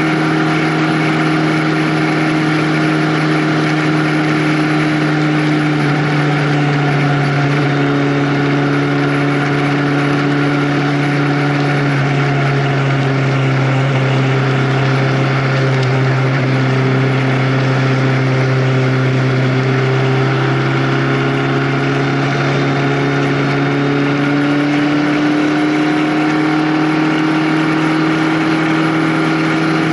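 A vehicle engine drones at road speed over a steady rushing noise. Its pitch drops about six seconds in as it slows, holds lower, then climbs back up in the last third as it speeds up again.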